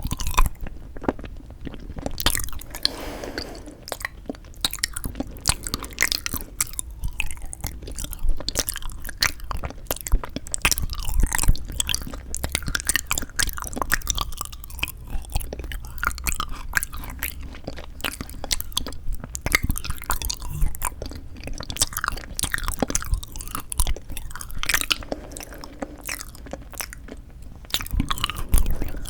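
Close-miked chewing and biting of frozen sweet red bean jelly (yanggaeng), a dense, uneven run of small sharp clicks and mouth sounds.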